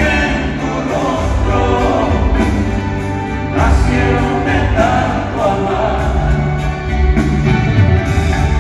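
Live band playing a ballad with a male lead vocal and steady low bass notes, heard through the reverberant sound system of an arena from the audience.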